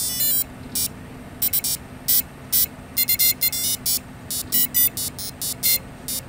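The ESCs of a 4-inch FPV quad playing their startup melody through the 1304 brushless motors. It is a tune of short, high-pitched electronic beeps in quick runs with short gaps between them.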